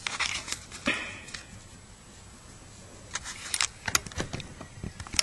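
Light clicks and rattles of hard objects being handled, in two clusters: one near the start and a denser one in the second half.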